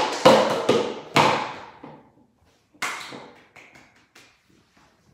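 Hard plastic objects clattering. Three sharp knocks with brief ringing come in the first second and a half, another comes about three seconds in, then a few lighter taps, as a thrown toy knife and knocked-down plastic cups strike and bounce.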